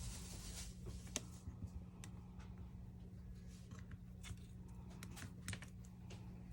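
Faint, irregular small clicks and taps of repair tools on a smartphone's internal parts and boards during disassembly, over a steady low hum.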